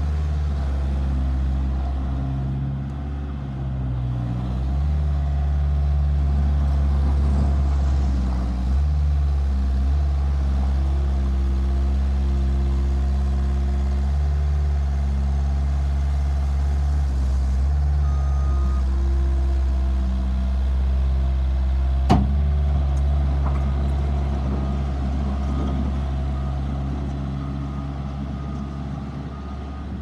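Bobcat S175 skid steer's diesel engine running and working, its pitch rising and falling as the machine drives and raises and tips its loader bucket. A backup alarm beeps about once a second in the later part, and there is one sharp knock about two-thirds of the way through.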